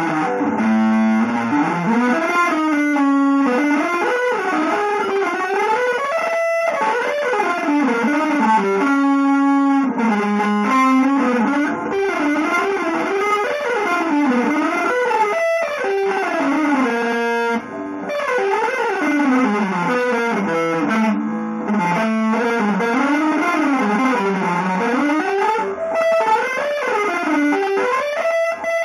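Electric guitar playing fast, unbroken single-note lines that wind up and down in pitch.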